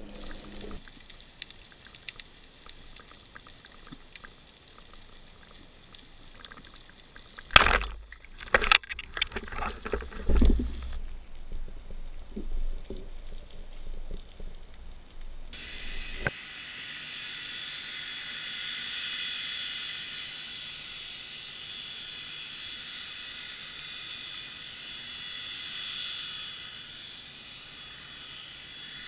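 Water and handling noise through an underwater camera housing: a run of loud knocks and sloshing about 8 to 11 seconds in as a caught fish is handled at the surface. From about 16 seconds in, a steady underwater hiss.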